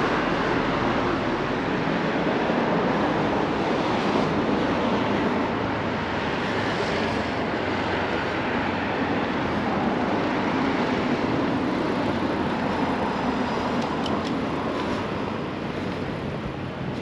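Steady outdoor city noise, a continuous rumble of road traffic.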